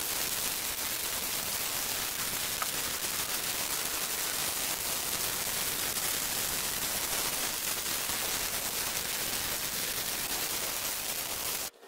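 Chicago Electric flux-core wire welder arc running one long continuous bead on steel, a steady hiss that cuts off abruptly just before the end.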